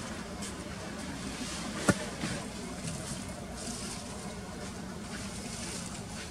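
Outdoor background noise: a steady low rumble with faint high buzzing that comes and goes, and one sharp click about two seconds in.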